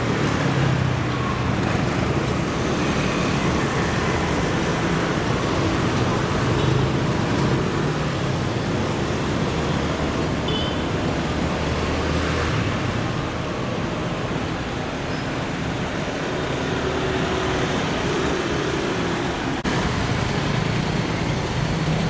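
Street traffic: engines and tyres of cars and motor scooters passing on a busy city road, a steady rumble.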